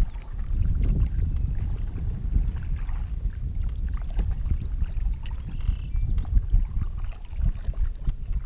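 Canoe under way on a river: paddle strokes and water moving along the hull, with faint scattered drips and splashes, under a steady low rumble of wind on the microphone.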